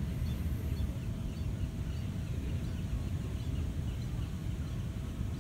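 Open-air ambience: a steady low rumble, with faint short bird chirps scattered through it.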